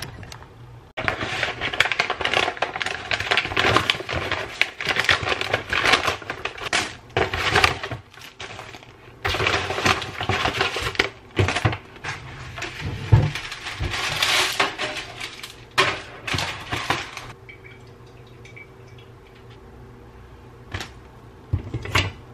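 Kitchen prep handling: plastic packaging rustling and crinkling, with dishes and utensils clinking on the counter. It goes quieter about three-quarters of the way through, leaving a few clicks.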